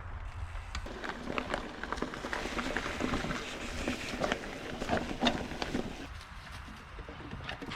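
Mountain bike rolling over rough trail: tyres crunching over the ground and the bike rattling, with many sharp knocks and clatters that are thickest in the middle and ease off near the end.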